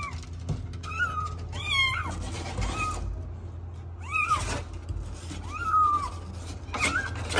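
Young kittens mewing: about seven short, thin, high-pitched mews, each rising and falling, spaced roughly a second apart.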